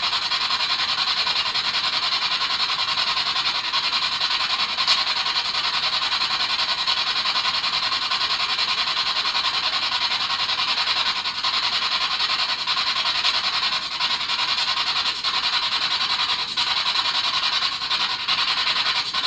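Spirit box, a radio that sweeps rapidly through stations, running: a steady, fairly loud hiss of radio static with a few short clicks scattered through it.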